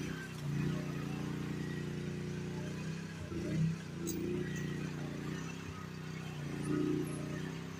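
GroundHog KH14G mini excavator engine running steadily, its note swelling briefly about three times as it works.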